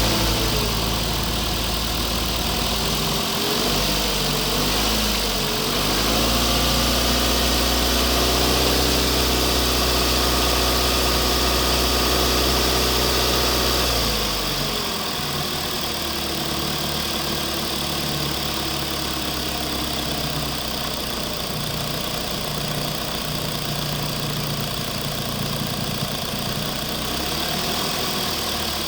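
RC construction machine running, an engine-like drone whose pitch rises and falls as it works. About halfway through the deep rumble drops away and the sound gets slightly quieter.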